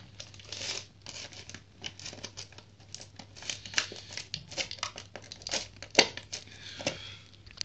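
Plastic packaging tray and cardboard box crinkling and rustling as an electronic speed controller is worked out of it by hand, with many small irregular clicks and one sharp click about six seconds in.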